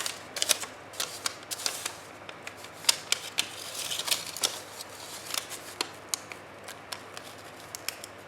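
Music paper being torn off a roll by hand and handled: crisp rustling and crackling paper with many sharp snaps.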